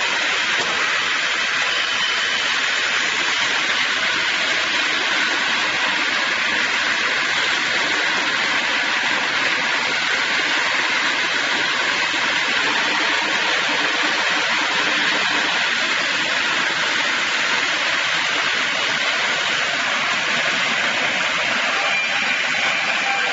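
Double-blade circular swing-blade sawmill running, a steady even hiss with no breaks or changes.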